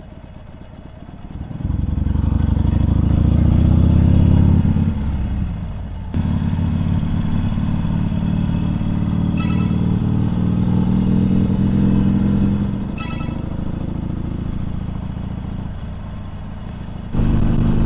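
Harley-Davidson Sportster 1200 Seventy-Two's V-twin engine, quiet at first as the bike slows for a roundabout, then pulling away and revving up, with a sudden dip at a gear change, before running steadily and opening up again near the end. Two short high chirps sound partway through.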